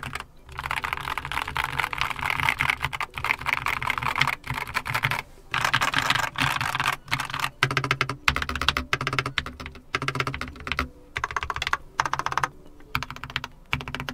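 Fast typing on a mechanical keyboard: a dense run of key clacks in bursts, broken by a few brief pauses.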